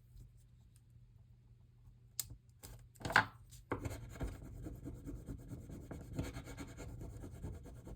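Hands working paper on a journal page: a few light clicks, then from about four seconds in, steady rubbing and scratching of paper, like a glued collage piece being pressed and smoothed down.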